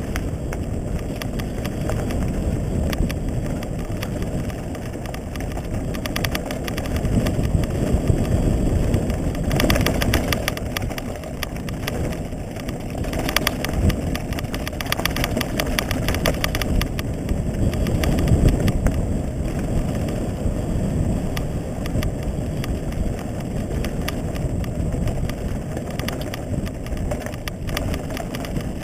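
Mountain bike riding fast down a rocky dirt trail: steady low rumble of tyres over gravel and stones mixed with wind on the microphone, broken by frequent small knocks and rattles from the bike.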